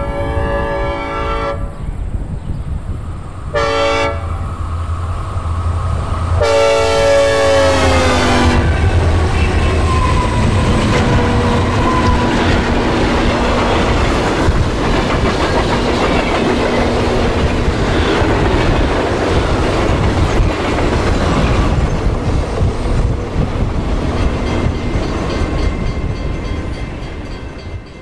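Synthesized recreation of a Nathan K5LLA "hybrid" five-chime locomotive air horn: a blast ending, a short blast, then a longer blast whose chord drops in pitch as it passes by. A loud train rumble with wheel clatter follows and fades near the end.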